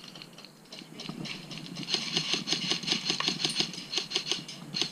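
Airsoft rifle firing a rapid string of shots, about five or six clicks a second, starting about two seconds in with a brief pause near the end. A few scattered shots come before the string.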